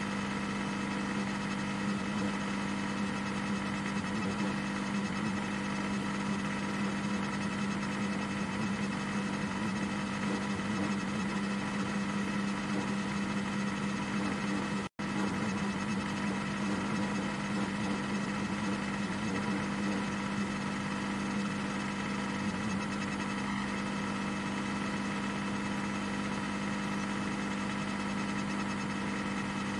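Ferrari 499P Hypercar's twin-turbo V6 heard onboard, running at a steady, unchanging pitch with no revving up or down. About halfway through, the sound cuts out for an instant.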